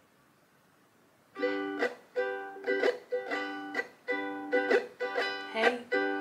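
Ukulele strumming: chords strummed in a steady, even rhythm of about two to three strums a second, starting about a second and a half in after near silence.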